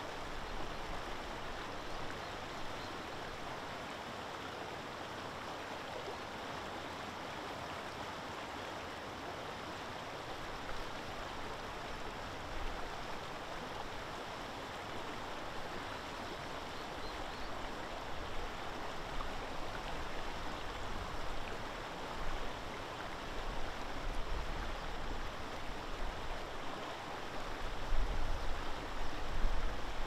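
Steady outdoor rushing noise, with low rumbles from the last few seconds on that grow louder near the end.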